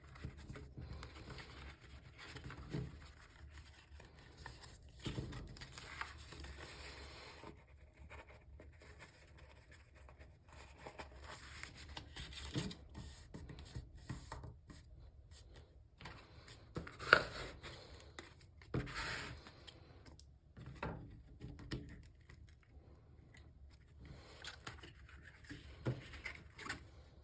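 Cardstock pieces being handled, lined up and pressed together by hand: faint, irregular rustling and scraping of paper, with light taps on the work surface and one sharper tap about seventeen seconds in.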